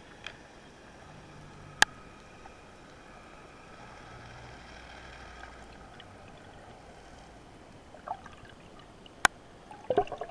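Underwater ambience heard through a diver's camera: a steady hiss with a faint hum. It is broken by two sharp clicks, about two seconds in and again near nine seconds, and a cluster of knocks and rattles at the very end.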